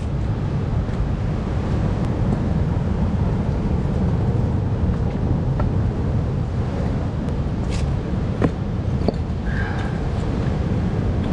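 Wind buffeting the microphone over the sound of heavy surf, a steady low rumble. A few sharp knocks about eight to nine seconds in as rocks are set down on the rock shelf.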